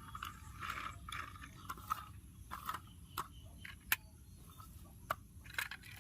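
Scattered light clicks and short scraping sounds, with one sharp click about four seconds in.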